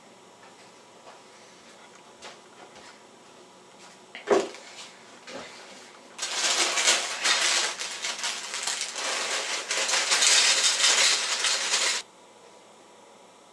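A thump on the table, then dry cereal poured from a plastic bag into a ceramic bowl, a dense crackling rattle for about six seconds that cuts off suddenly.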